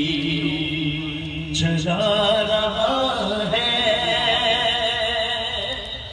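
Male voice chanting devotional verse in long held notes, with the pitch stepping up about two seconds in. The sound dips near the end.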